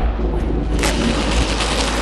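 Sound effects of an animated intro: a deep, steady rumble under a noisy hiss, with a whoosh about a second in, leading into the logo reveal.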